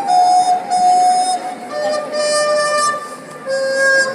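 Flute playing a slow melody of held notes that step downward in pitch, with a short pause about three seconds in.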